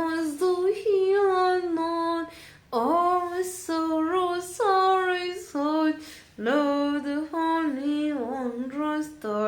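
A woman's solo unaccompanied singing voice carrying a slow hymn melody in short phrases with held notes and indistinct words, as in a ventriloquist's sung act.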